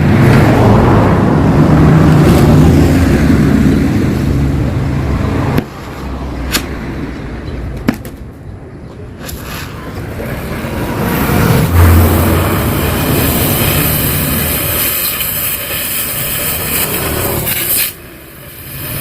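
Yamaha RX-King two-stroke single running through an exhaust bored out for a crisp, growling note. It runs loudly for about five seconds, drops back, then builds up again from about halfway and eases off near the end, with two sharp clicks in the quieter middle.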